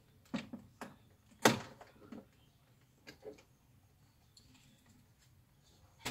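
Audi A6 plastic door trim panel being pulled off the door: a handful of sharp clicks and knocks as it comes away, the loudest about a second and a half in.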